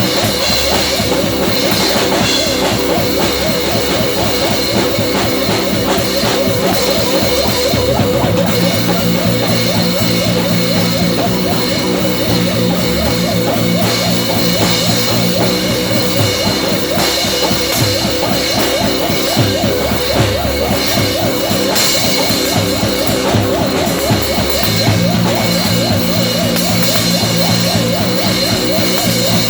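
Rock music with drums and electric guitar playing steadily.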